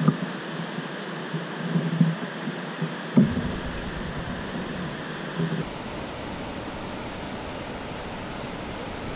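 Steady rush of water pouring through a dam's open spillway gates, with a few knocks and thumps from handling the kayak and rod, the loudest about three seconds in. From then on, wind rumbles on the microphone.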